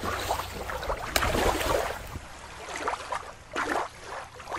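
Shallow water lapping and sloshing in uneven surges, with one sharp click about a second in.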